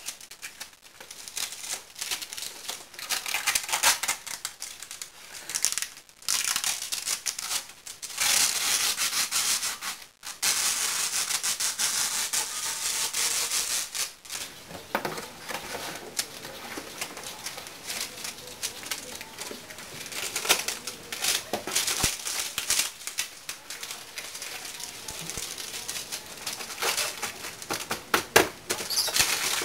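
Adhesive tape being pulled off its roll in noisy stretches of a second or two, among the crinkling and rustling of cardboard and a cloth sheet being handled and pressed down.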